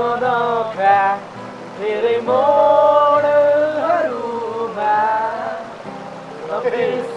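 Music: a melody of long held notes that glide from one pitch to the next, over a steady lower accompaniment.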